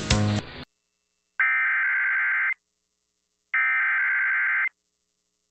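The tail of the previous audio cuts off abruptly, then two bursts of an Emergency Alert System SAME header, the buzzy warbling data tones that open an EAS message, each about a second long with a second of silence between.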